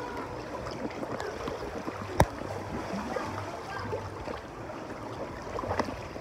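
Water sloshing and splashing as several people wade through a shallow water-park pool channel. A single sharp click about two seconds in.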